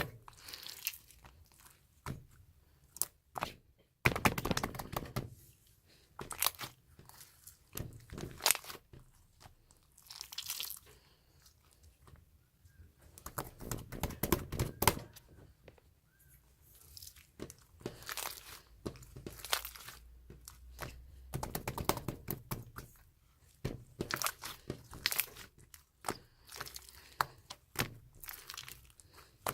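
Tough, stretchy slime being handled by hand: irregular squishing, popping and crackling clicks as it is pressed, folded and pulled, with short pauses between bursts.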